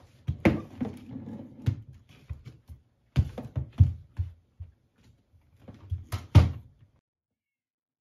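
A switched-off Dyson cordless stick vacuum knocking and thudding on a wooden floor as it is dragged along, about half a dozen sharp knocks, with a few short vocal sounds between them.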